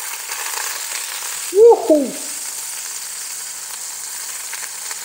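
Food sizzling steadily in hot oil in a pan. About a second and a half in comes a short, loud voice-like cry that glides up and then down.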